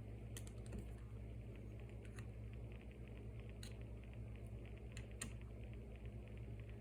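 Faint light clicks and taps of small hand tools on a smartphone's internal parts during disassembly, with a quick run of fine ticking in the middle, over a steady low hum.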